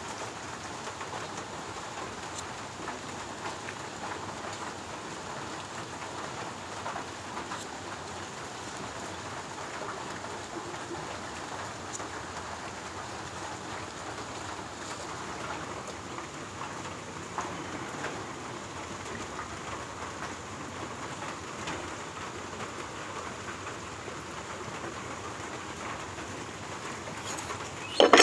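Steady rain pattering on surfaces, an even hiss with scattered light drips and ticks. A short loud sound breaks in right at the end.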